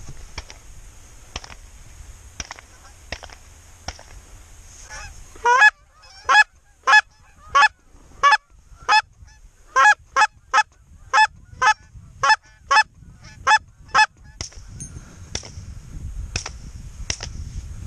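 A hunter calling to geese: a regular run of about fifteen loud, close goose honks, nearly two a second, starting about five seconds in and stopping about fourteen seconds in. Fainter, more distant honks and wind rumble on the microphone come before and after the run.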